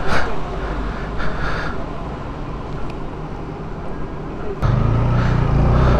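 TVS Apache 200's single-cylinder engine running. A quieter rumble with a few short handling noises is followed, about four and a half seconds in, by an abrupt jump to a louder, steady engine note as the motorcycle rides on.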